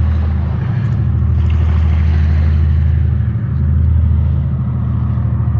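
A loud, steady low rumble with an even hum-like tone.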